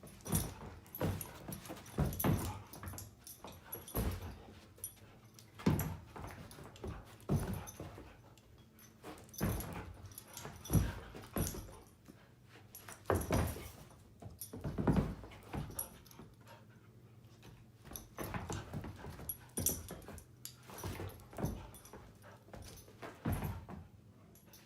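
A dog whimpering, in many short sounds at irregular intervals.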